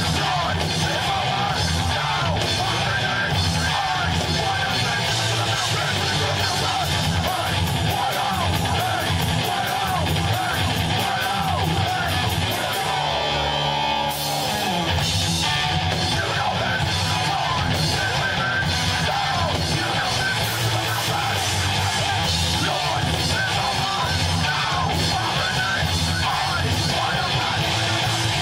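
Live heavy rock band playing loud distorted guitars, bass and drums, with shouted vocals. About halfway through, the cymbals drop out for a moment before the full band crashes back in.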